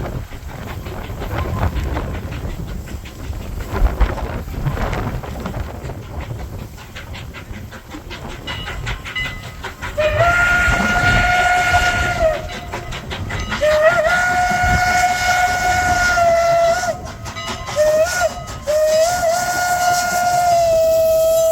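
Steam locomotive CN No. 89 (a 2-6-0 Mogul) works along with exhaust chuffs and rail noise. About halfway through, its Pennsylvania Railroad Banshee chime whistle blows two long blasts, a brief one and then a long one, the grade-crossing signal.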